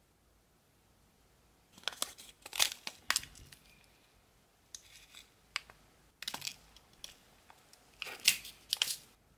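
Small clear plastic bag crinkling and rustling in handling, in several short bursts, while tiny pixie stones are picked out of it.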